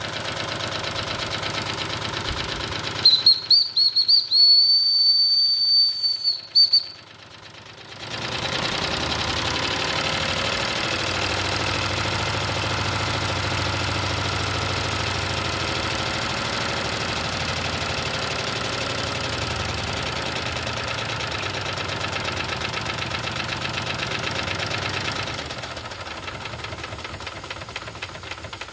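Wilesco D32 model steam engine running with a steady hiss. About three seconds in, its steam whistle blows a loud high steady note for about four seconds. The running sound goes on after the whistle and gets quieter near the end.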